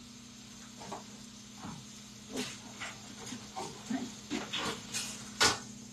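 Faint kitchen handling noises: scattered clicks and clatter over a steady low hum, with one sharper knock near the end.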